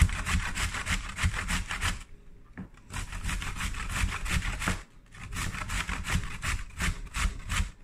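Zucchini being grated by hand on a stainless-steel box grater: quick, rhythmic rasping strokes, about five a second, in three runs broken by short pauses about two seconds in and again about five seconds in.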